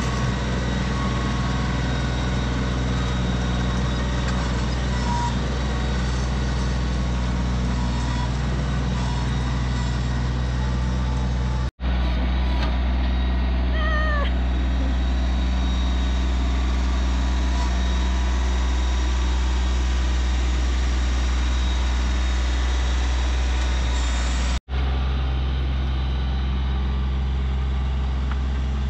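Compact tractor engine running steadily while the tractor drags a rear blade through the soil, cutting out for an instant twice. A short squeal that rises and falls is heard about halfway through.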